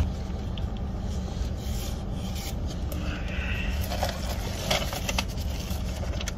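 Soft rubbing and handling noises, with a few brief scrapes about five seconds in, over the steady low hum of a car idling.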